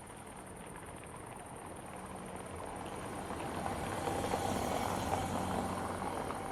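A car approaching on a paved road, its tyre and engine noise swelling to a pass about four to five seconds in and then starting to fade. Crickets chirp steadily at a high pitch throughout.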